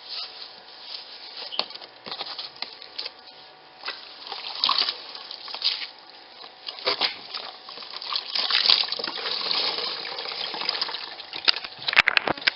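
Water splashing and dripping as wet, soapy laundry is handled in a portable twin-tub washing machine, with a few sharp plastic clicks near the end.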